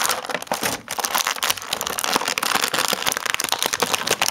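Clear plastic blister packaging crinkling and crackling as hands pull an action figure out of it: a dense run of crackles with a brief pause a little under a second in.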